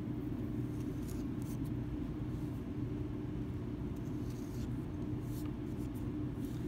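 A steady low hum runs underneath, with a few faint light scratches and soft ticks as a pointed clay tool is drawn through a soft clay slab and the cut squares are lifted apart.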